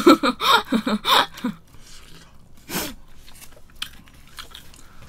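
Fried chicken being bitten and chewed close to the microphone, with crunching: a cluster of loud bites in the first second and a half, another around three seconds in, then faint smacking clicks.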